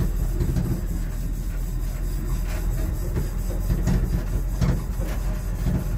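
1958 Chevrolet ton-and-a-half truck's straight-six engine running steadily as the truck drives slowly, heard from inside the cab, with a few short knocks mixed in.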